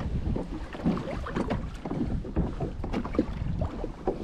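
Wind buffeting the microphone, with choppy sea water splashing and slapping irregularly against a plastic fishing kayak's hull.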